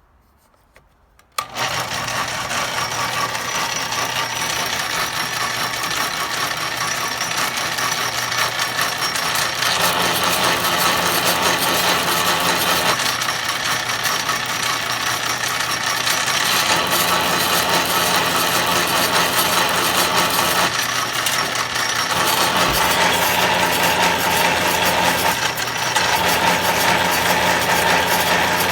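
Homemade motor-driven wire stripper, powered by an old bandsaw motor geared down through gears and a pulley belt, starting up abruptly about a second and a half in and running fast and noisily. Its clattering whir shifts in level and tone several times.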